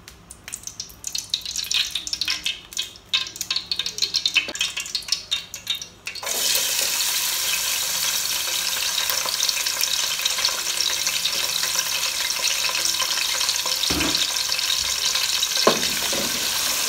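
Vegetable oil in an aluminium pot crackling and popping irregularly as it heats, then about six seconds in a sudden loud, steady sizzle as chopped onions fry in the hot oil. A wooden spoon stirring knocks against the pot twice near the end.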